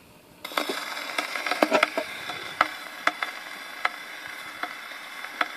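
Needle of an HMV 99 portable gramophone's No. 16 soundbox dropping onto a spinning 78 rpm shellac record about half a second in, then steady surface hiss with scattered crackles and clicks from the run-in groove.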